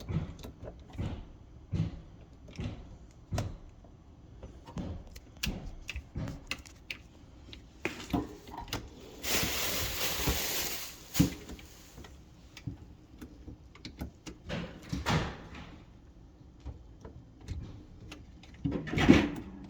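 Irregular knocks, bumps and scrapes from work on an ice maker under a kitchen counter. There is a hissing rush of about two seconds near the middle, and a louder cluster of bumps near the end.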